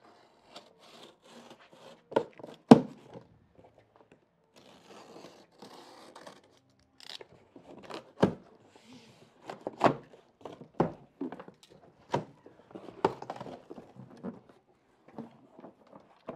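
Large cardboard shipping box being cut open and its flaps pulled back: scratchy tearing and scraping of cardboard and packing tape, broken by irregular sharp knocks, the loudest about three seconds in.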